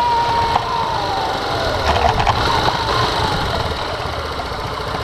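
Small motorbike engine running while riding, with a high whine that holds steady for about a second and then slides down in pitch over the next two seconds.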